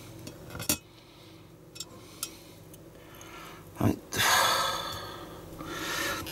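Small plastic model-kit parts and a screwdriver being handled: a sharp click under a second in and a few light ticks, then a knock just before four seconds followed by a long breathy rush that fades over about a second.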